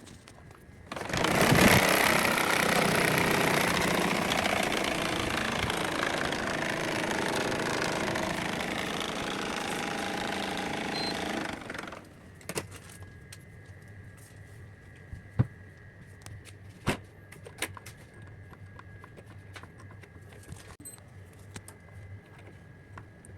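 Air conditioner blower running with a loud, rough noise for about eleven seconds, then stopping suddenly: the noise of a broken blower wheel. After it stops, a faint steady hum and a few sharp clicks.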